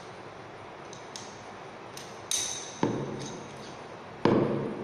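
Metal tool clinks and knocks as the connecting-rod cap bolts of an engine are tightened with a socket and T-handle: a sharp ringing clink a little past two seconds in, then two heavy knocks, the second near the end and the loudest.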